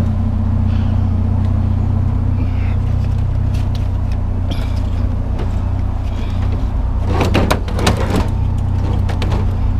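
Truck engine running steadily, with a short clatter of knocks about seven to eight seconds in.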